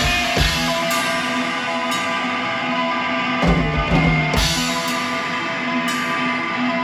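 Live rock music from an electric guitar and a drum kit: the guitar holds long ringing notes while the drums come in with a few hits just after the start and a quick run of hits a little after the middle.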